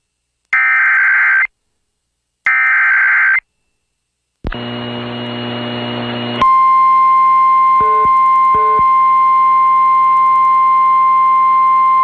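Emergency Alert System SAME header: two bursts of warbling data tones, about a second each and a second apart. A rough buzz with hiss follows for about two seconds, then the long steady NOAA Weather Radio alert tone begins, with a short double beep over it partway through.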